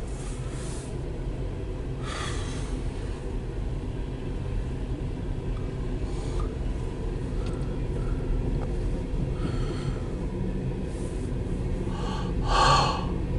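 Steady low rumble of an empty CSX coal train's hopper cars rolling past, heard from inside a vehicle's cabin. Short hissy puffs come through several times, the loudest near the end.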